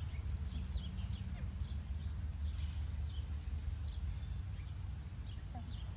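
Short, high chirping calls scattered throughout, over a steady low outdoor rumble.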